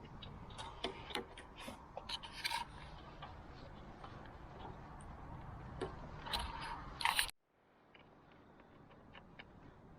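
Scattered light clicks, ticks and scrapes of parts or tools being handled, over a low steady background; the sound cuts off abruptly about seven seconds in, and a fainter background with small ticks follows.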